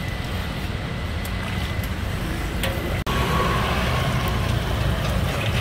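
Steady outdoor street rumble, low and continuous, with traffic noise in it. About three seconds in it drops out for an instant at an edit and comes back a little louder.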